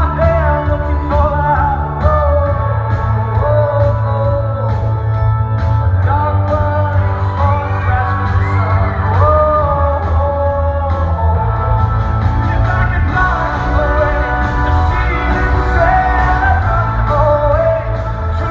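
Live band performance heard in a large hall: a male lead singer over a heavy bass line and drums.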